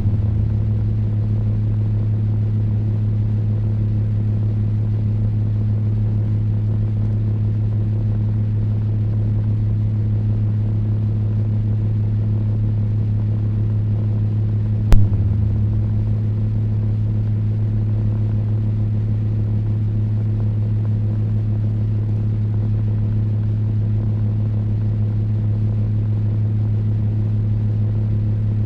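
Table fan running steadily with a low electric hum. There is a single sharp click about halfway through.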